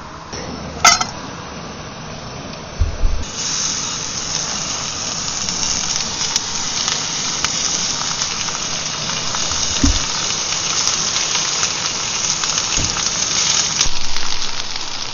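Food sizzling in a hot pan, the hiss starting suddenly about three seconds in as it goes into the pan. A sharp metal clink comes about a second in, and a few dull knocks follow.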